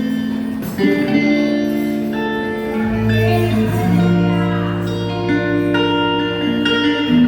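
Instrumental church music with sustained chords that change every second or two and a guitar-like tone. A deep bass note comes in about three seconds in; there are no strong drum hits.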